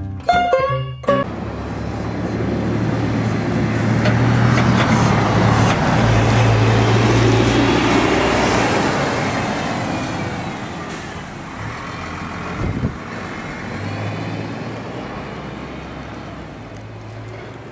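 Double-decker bus passing close by, its diesel engine running with a steady low note. The sound swells to its loudest about halfway through and then fades slowly as the bus draws away.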